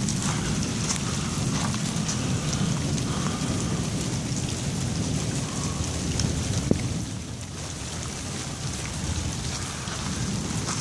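Steady rain falling, with a low rumble of thunder underneath, from a storm that has just dropped hail.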